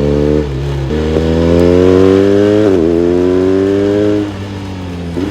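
BMW R1250RS boxer twin engine accelerating through the gears: its pitch climbs, drops sharply at an upshift about a second in and again near the middle, climbs once more, then falls off near the end as the throttle eases.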